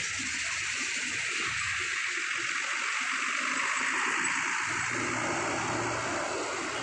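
A Hino coach driving slowly past on a ferry's steel ramp: a steady hissing rush, joined about five seconds in by the low hum of its engine as the rear of the bus draws level.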